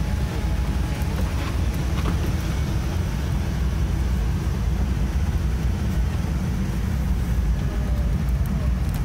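Steady low rumble of a Boeing 787-9's cabin air system running while the aircraft is boarding, with a few faint clicks over it.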